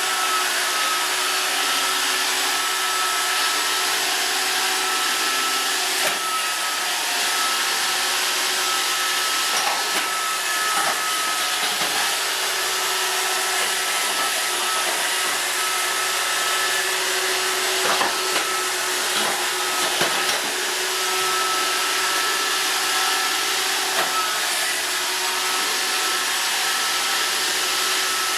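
Roomba robot vacuum running steadily, a whirring hiss with a faint high whine, with a few brief knocks along the way.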